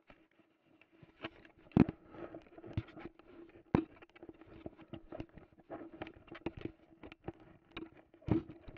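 Handling noise from a camera carried against a shirt while the holder walks on grass: irregular rubbing, scraping and knocks, the loudest about two seconds in, four seconds in and near the end, over a faint steady hum.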